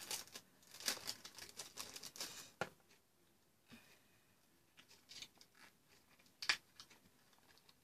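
Quiet scissors snips and packaging rustle, thick for the first two and a half seconds, then a few scattered clicks with one sharper click near the end.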